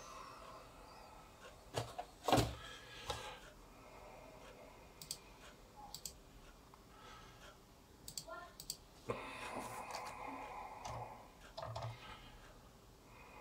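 A few scattered sharp clicks and taps, and about nine seconds in a rustling, clattering stretch lasting a couple of seconds.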